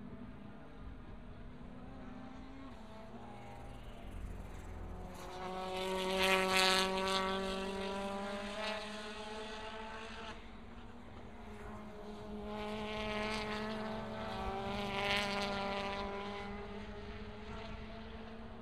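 World Touring Car Championship racing cars' 1.6-litre turbocharged four-cylinder engines passing through a corner one after another. Their engine notes swell to a peak about six seconds in and again around thirteen to fifteen seconds, each time fading as the cars pull away. A steady low drone runs underneath.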